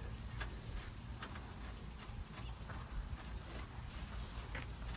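Quiet outdoor background with faint light taps and clicks of hands working on alternator bolts. A short, high, falling chirp comes twice, about a second in and near the end.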